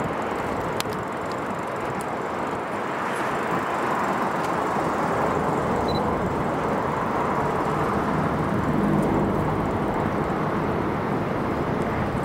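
Steady road traffic noise from cars driving along a multi-lane road.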